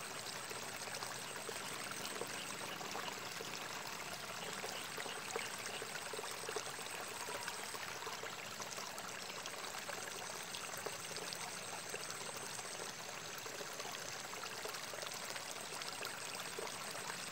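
Steady trickle of water running in a narrow ditch between rice fields, with a faint high thin tone above it.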